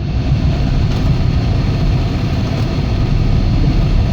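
An off-road SUV's engine revved hard under heavy throttle: a loud, steady low drone that comes in suddenly, with the vehicle stuck in deep water and its exhaust submerged.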